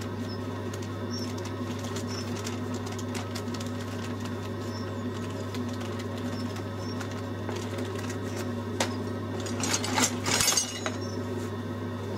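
Gas boiler running, its flue fan giving a steady hum through the wall-mounted flue terminal, with a short clatter of clicks about ten seconds in.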